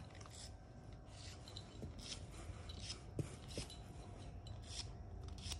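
A nail file rasping across a dog's claw in quick, irregular strokes, two or three a second.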